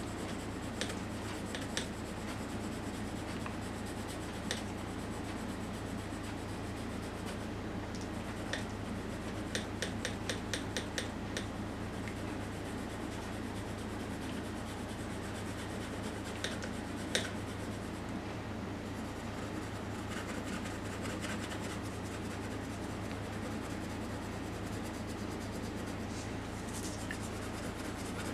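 Graphite pencil shading on drawing paper: a steady soft rubbing and scratching, with a quick run of short strokes about ten seconds in.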